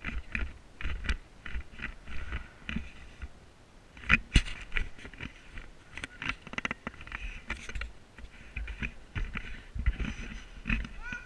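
Handling noise of a GoPro camera: irregular knocks, clicks and rubbing as it is moved about and pressed against a metal mesh fence, with a low rumble under it.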